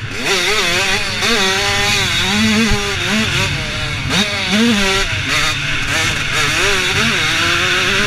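Supermini motocross bike engine racing around the track, its pitch repeatedly rising under throttle and dropping off as the rider shifts and brakes.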